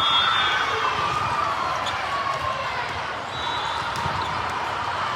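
Echoing gym hall din during indoor volleyball play: many voices talking at once, sneakers squeaking on the court floor, and scattered sharp ball hits.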